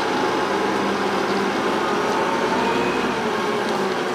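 Diesel engine of a Mack concrete mixer truck running as the truck pulls away, a steady engine drone.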